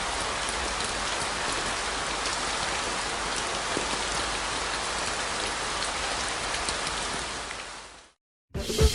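Steady rain, an even hiss with faint scattered drop ticks, fading in at the start and fading out near the end.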